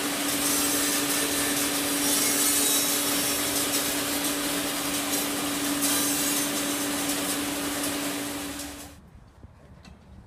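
Large block band saw running and sawing lengthwise through a big log: a steady hum under a loud rasping hiss of the blade in the wood. It stops abruptly near the end, leaving only a few faint clicks.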